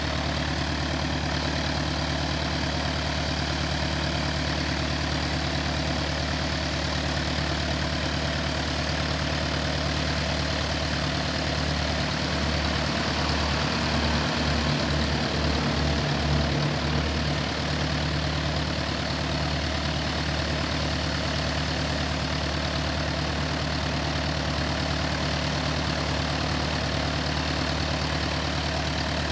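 Piper PA-28 Warrior's four-cylinder Lycoming piston engine idling steadily on the ramp after start-up, its sound swelling slightly with a pulsing beat about halfway through.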